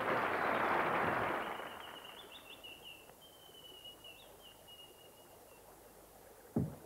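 A rushing wash of noise fades away over the first second and a half. Then a thin, high chirping whistle like a bird call warbles for a few seconds, and a single knock comes near the end.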